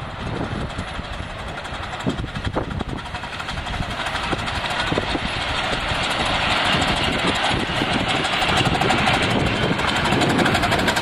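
A 1904 Cagney 15-inch gauge 4-4-0 steam locomotive running with riding cars behind it, its exhaust puffing and its wheels running on the rails. It grows steadily louder as it draws near.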